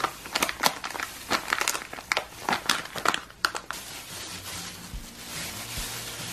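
Thin plastic disposable gloves crinkling as hands scoop out and knead fresh glue slime: a run of sharp crackles for the first few seconds, then a softer, steady rustle.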